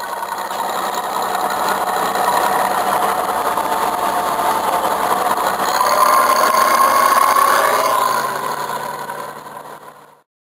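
Bizon Z056 combine harvester running close by: its diesel engine and working machinery give a steady mechanical din. The din grows louder through the middle, then fades out near the end.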